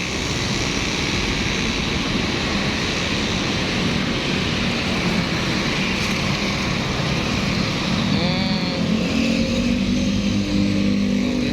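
Steady engine noise of street traffic and road-works heavy equipment. About eight seconds in an engine note rises in pitch, then a steadier low engine hum carries on.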